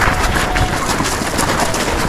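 Trail runners' footfalls and movement just after a race start, heard as a dense rustling noise with many short knocks, with a faint steady tone in the first part.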